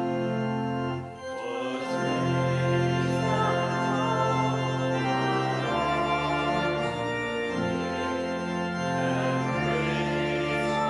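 Church organ playing slow, sustained chords that change every second or two, with a brief break about a second in.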